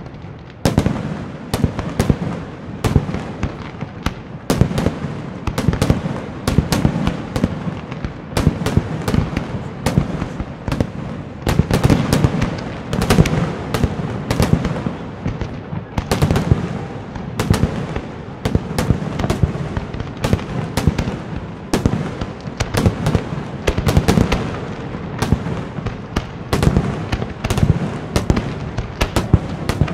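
Night aerial fireworks display: a continuous barrage of sharp cracks, many a second, over a steady low rumble of bursting shells.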